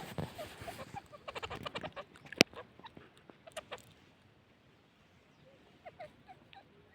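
Grey francolin giving soft, short clucking notes, scattered and faint. In the first two seconds there is rustling and a quick run of clicks, then one sharp loud click about two and a half seconds in.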